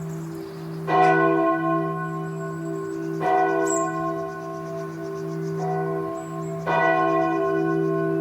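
A large bell struck three times, a couple of seconds apart, each strike ringing on with many overtones over a steady low hum from the earlier strikes.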